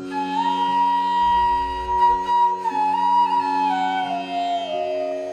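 Instrumental background music: a flute melody of long held notes stepping slowly down in pitch over a steady drone.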